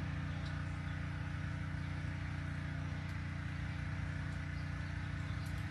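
A steady low mechanical hum with an even drone, and a few faint light ticks over it.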